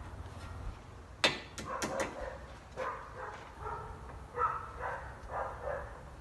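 Four sharp clicks a little over a second in, then a series of short, high whines and yelps from a dog, about two a second.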